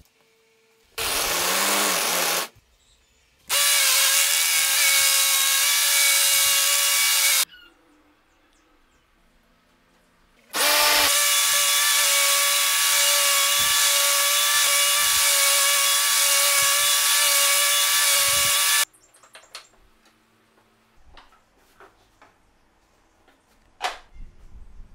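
Angle grinder driving a homemade roll sander's sanding belt: it spins up briefly about a second in, then runs with a steady high whine twice, for about four seconds and then about eight, while a piece of wood is held to the belt. Once it stops, a few light taps and one sharp click near the end.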